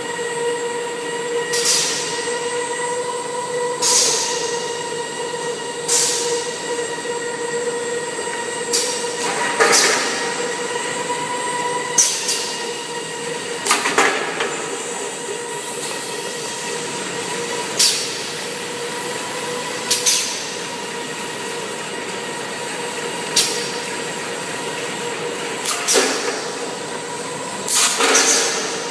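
Chocolate-coated wafer feeding and packing line running: a steady machine hum with a whine that fades out about halfway, and short sharp mechanical noises every couple of seconds.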